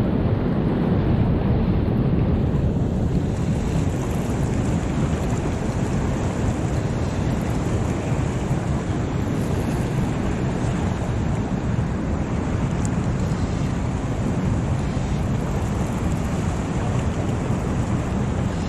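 Fast whitewater rushing steadily through a lake's spillway inlet.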